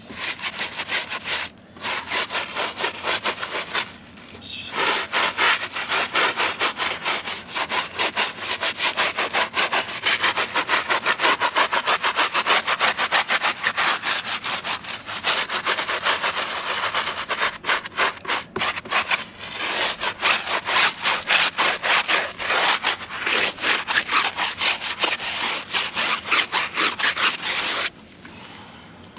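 Stiff-bristled scrub brush, wet, scrubbed rapidly back and forth over a tyre, several strokes a second, with brief pauses about a second and a half in, around four seconds in, and near the end.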